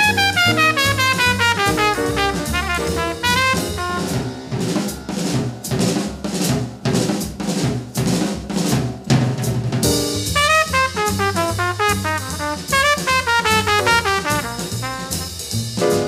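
Bebop jazz: a tenor saxophone plays fast runs of notes, then a drum kit takes a solo break of several seconds, and the saxophone runs come back in. The horn and drums trade phrases over the band.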